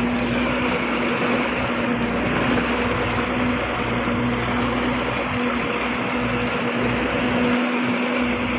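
Honda 250 hp four-stroke V6 outboard motor running steadily at cruising speed, a constant hum, with the rush of water churned up by the propeller and hull.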